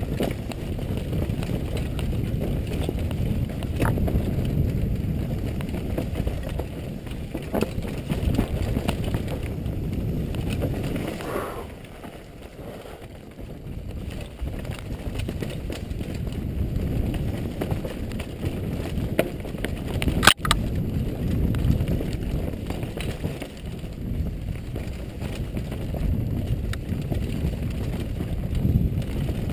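Downhill mountain bike running over a rocky dirt trail, heard from a helmet-mounted camera: a constant rush of wind and tyre noise with the bike rattling over rocks. The noise eases for a couple of seconds about twelve seconds in, and there is one sharp knock about twenty seconds in.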